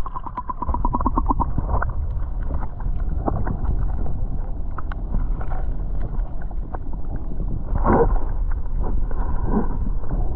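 Muffled sound from a camera held underwater while snorkelling: a steady low rush of water against the camera, with a run of rapid pulses in the first two seconds, scattered light clicks, and a louder swell about eight seconds in.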